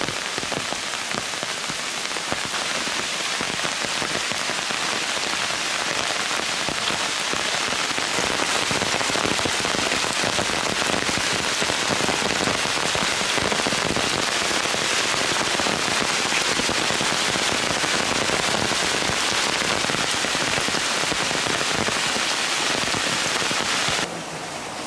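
Heavy rain falling: a steady, loud hiss that grows a little stronger over the first several seconds, then drops off abruptly about a second before the end.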